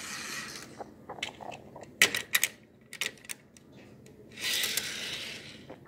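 Model train running on plastic track, giving a few sharp clicks and light rattles, the loudest about two seconds in. Two stretches of soft hiss come and go, one at the start and one about four and a half seconds in.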